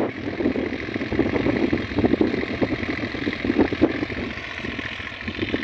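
Deutz-Fahr tractor's diesel engine running as it pulls a rotavator across the field, heard from a distance. Uneven gusts of wind on the microphone rise and fall over it.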